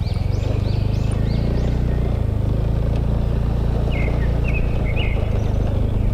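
Motorbike engine running steadily under way. Birds chirp over it in quick repeated notes during the first couple of seconds and again briefly near the middle.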